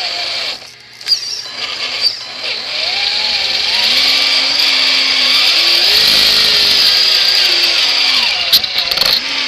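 Electric motor and gearbox of an R/C crawler truck whining as it drives. The pitch rises and falls with the throttle, and it is loudest from about three seconds in until shortly before the end.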